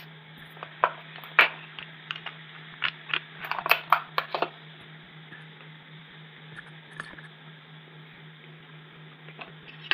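Wires being snipped with cutters: a run of short, sharp cutting clicks in the first half, then only a few faint ticks, over a steady low electrical hum.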